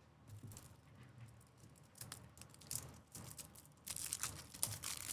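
Trading-card pack wrappers crinkling and tearing, with light clicks and taps as cards are handled. The crinkling gets louder and denser near the end.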